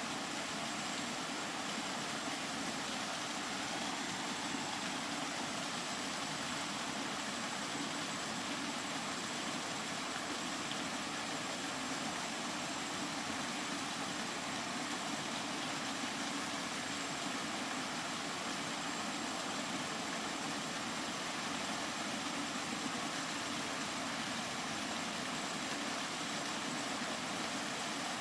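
Steady rain, an even hiss that does not change in level, with no single drops or knocks standing out.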